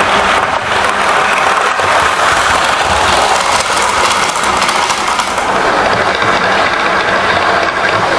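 Model train running on the layout's track: a steady, unbroken mechanical noise of motor and wheels.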